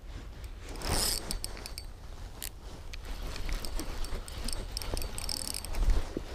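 Handling noise close to the microphone: a jacket sleeve rustling and scraping over the camera, with scattered small clicks of fishing gear and a dull thump near the end.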